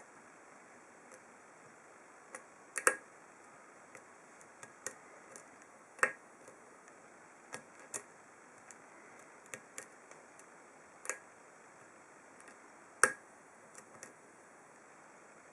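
Irregular faint clicks of a hook pick and tension tool working the pin stack of an ASSA Ruko 2 padlock, with three louder clicks among them.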